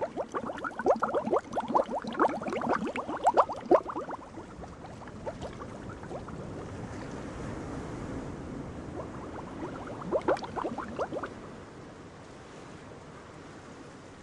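Bubbling, gurgling water as a ship sinks: a dense run of rapid bubbles for the first four seconds, a steadier wash of water after, and a second, shorter burst of bubbling about ten seconds in.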